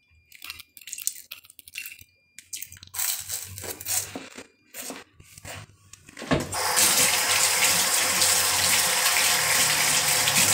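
Scattered light clicks and knocks, then about six seconds in a water tap starts running steadily into a sink.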